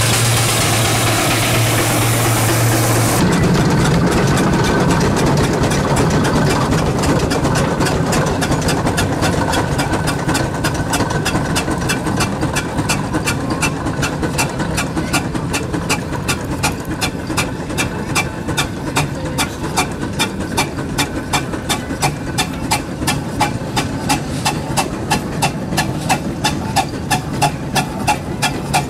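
Steam traction engine on the move, its exhaust chuffing in an even beat of about two to three a second that grows more distinct towards the end. The first few seconds hold a steady engine hum.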